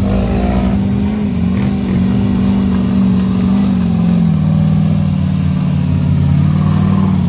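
Rock bouncer buggy's engine running at fairly steady revs as the buggy climbs a rocky trail, its pitch dropping about four seconds in.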